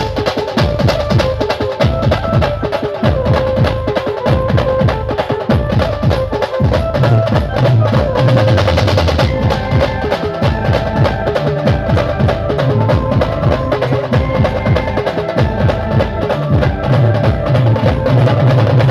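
Instrumental break of a live band: a sustained melody line over fast, dense drumming with snare and bass drum.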